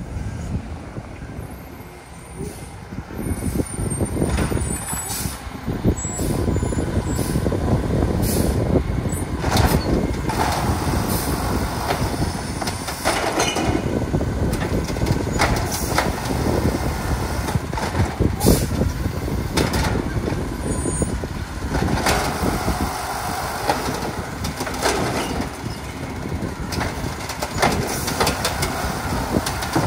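Peterbilt 520 garbage truck with an Amrep HX-450 automated side-loader pulling up to the curb with air brake hisses, then its engine running under load as the hydraulic arm grabs, lifts and dumps a trash cart, with repeated clanks and hisses.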